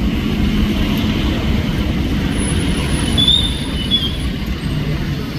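Vehicle engines running close by, a steady low rumble, with a couple of brief high squeaks a little past three seconds in.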